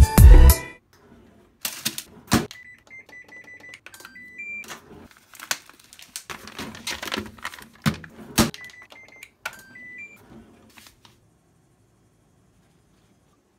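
A thin clear plastic supermarket food tray crinkling and clicking as cooked chicken pieces are tipped out of it onto a paper plate, with a few sharp clacks. Two short runs of brief high electronic beeps sound in between, a few seconds in and again about 9 seconds in. The sounds stop about 11 seconds in.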